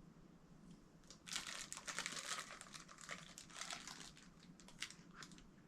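Parcel packaging crinkling and rustling as an item is unwrapped and handled, starting about a second in with a few last crackles near the end.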